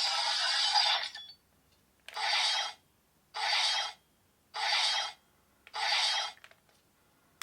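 Electronic sound effect from a Kamen Rider Gaim CSM Lockseed toy's speaker: five hissing bursts, one longer burst followed by four shorter ones at an even pace of about one a second.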